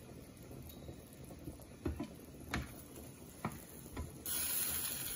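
A few light knocks of a utensil against a cooking pot. About four seconds in, a steady sizzle starts suddenly as food goes into hot oil in the pan.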